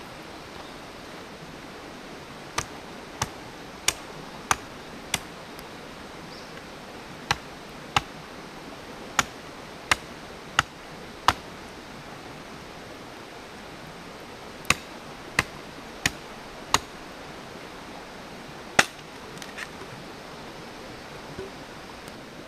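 Campfire crackling: sharp, brief pops from burning wood at irregular intervals over a steady hiss.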